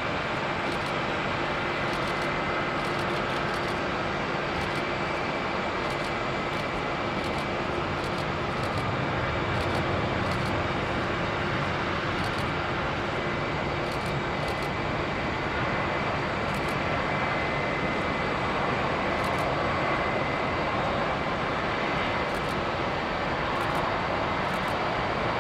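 Airbus A320-family jet airliner landing and rolling out on the runway: steady jet-engine noise with a thin high whine, swelling slightly about ten seconds in.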